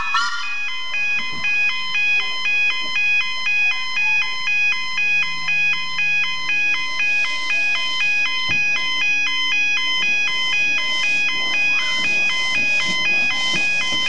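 Background music: a simple electronic chiming tune with evenly paced notes.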